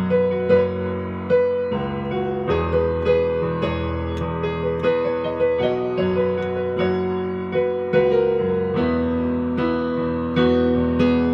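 Piano playing an instrumental interlude of a slow ballad, without singing: sustained chords with notes struck about every half second over a changing bass line.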